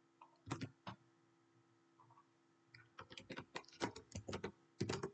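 Faint clicking of computer keyboard keys: two single clicks about half a second in, then a quick run of keystrokes from about three seconds in.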